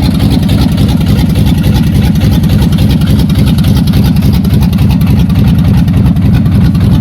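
LS V8 engine of an LS-swapped Chevy S10 pickup idling, loud and steady, with a low, fast exhaust pulse.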